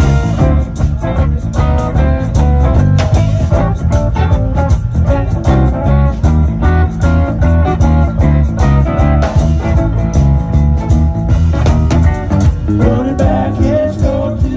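Live band playing with electric guitars, strong bass and a steady drum beat.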